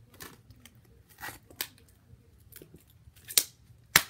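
Clear plastic packaging of a phone case being handled and pulled open: a short rustle, then a few sharp plastic clicks, the loudest two near the end.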